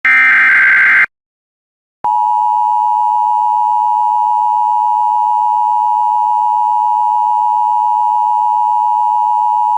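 Emergency Alert System data burst and attention signal: the last of the SAME header bursts, a harsh digital buzz about a second long, then after a second's pause the steady two-tone EAS attention signal, held without change, that precedes the voice message of a weather alert.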